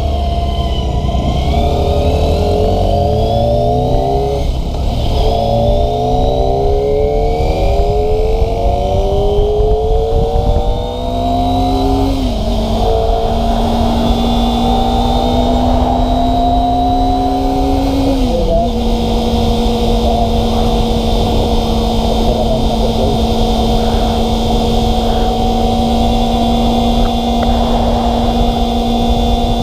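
Kawasaki ZX-25RR's 250 cc inline-four engine accelerating through the gears, its pitch climbing repeatedly and dropping back at each upshift. It then holds a steady high-revving pitch, with two brief dips about twelve and eighteen seconds in.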